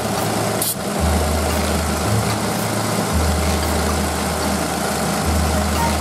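Daihatsu Tanto L375S's small three-cylinder engine idling, its low hum coming and going in stretches of a second or two. A brief hiss comes about a second in.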